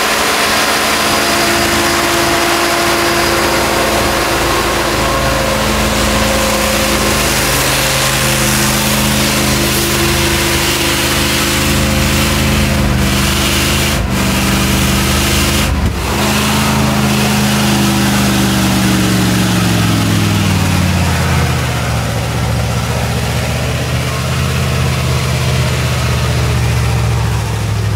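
Ural-375 truck's V8 engine working hard under load on a hill climb. About three-quarters of the way through its pitch drops and stays low as the engine bogs down, with two brief breaks in the sound shortly before.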